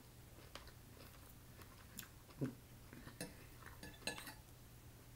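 A metal fork clinking and scraping against a ceramic plate while rice noodles are gathered, a handful of faint, scattered clicks with one louder knock about halfway through, alongside soft chewing.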